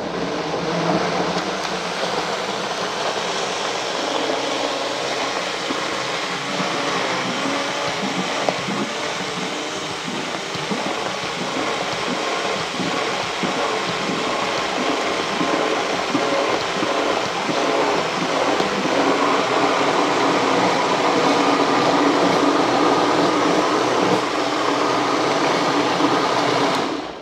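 Countertop blender running continuously at speed, blending frozen bananas, frozen blueberries, spinach, almond butter and water into a smoothie. The sound changes and brightens about two-thirds of the way through, and the motor stops near the end.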